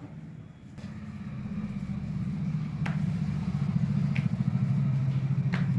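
A low engine-like drone that swells over the first two seconds and then holds steady, with a few faint clicks on top.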